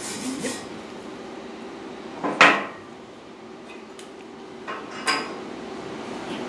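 A few sharp metallic clanks and clinks of metal parts being handled, the loudest about two and a half seconds in, with smaller ones near the end. A steady low hum comes up under them in the second half.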